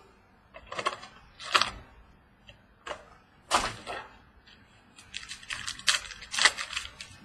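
Hands handling card packaging: a string of separate clicks, snaps and short rustles, thicker in the last two seconds, as a sealed box of trading cards is opened and its contents handled.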